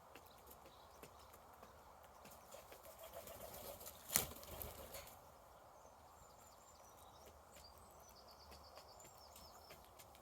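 Birds pecking at scattered feed: light, irregular taps and clicks, with one louder knock about four seconds in and a quick run of short, high chirps in the second half.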